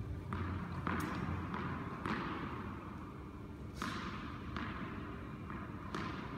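Tennis ball bounced on an indoor hard court: a handful of sharp, unevenly spaced knocks, each with a short echo from the hall, over a steady low hum.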